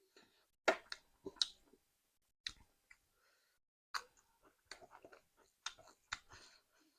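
Close-miked eating sounds of a person chewing curry and rice: irregular wet mouth smacks and clicks, about seven louder ones scattered through the stretch.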